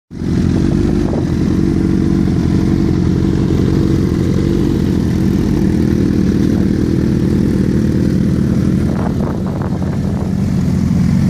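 Inline-four 1000 cc sport-bike engine idling steadily through an aftermarket exhaust.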